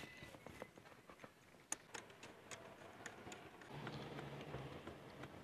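Faint, scattered small metal clicks as intake manifold bolts and nuts are handled and threaded in by hand. A faint low hum comes in about four seconds in.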